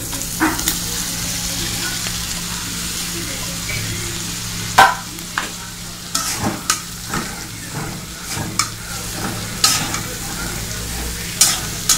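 Chopped bitter gourd sizzling in hot oil in a kadai, with a spatula stirring and scraping against the pan in irregular clicks and scrapes from about five seconds in, the sharpest one at the start of the stirring.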